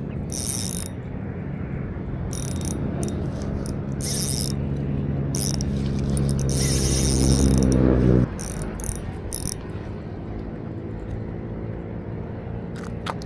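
Spinning reel cranked steadily, its gears whirring with a slowly rising pitch until the cranking stops abruptly about eight seconds in, with the drag clicking in short bursts as line slips. The line is snagged, which the angler takes for a fishing net.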